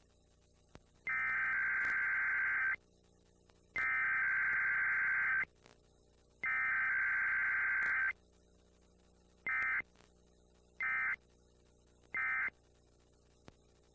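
Emergency Alert System Required Weekly Test data tones: three long, identical digital header bursts of about a second and a half each, then three short bursts near the end, the end-of-message code.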